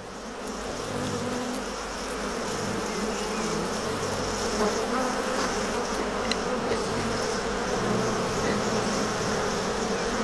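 A mass of honeybees buzzing around a hive in a dense, steady hum that swells up over the first couple of seconds.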